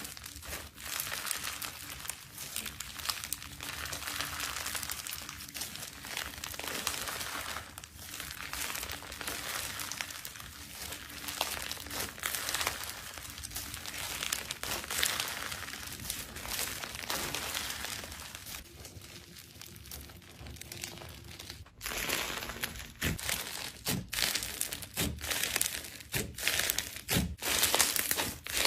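Slime being squeezed and worked by hand, giving a steady crackling and popping. About two-thirds of the way through the sound changes abruptly to sharper, louder pops.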